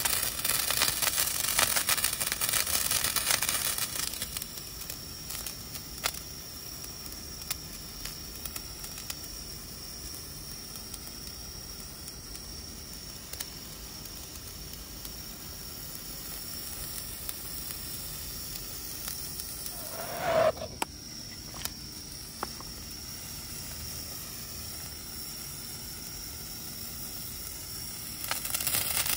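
Small hand-held firework burning: a hissing spray of sparks that dies down after about four seconds into a quieter steady hiss with a few scattered small crackles. A short rising squeak about two-thirds through, and the hiss grows louder again near the end.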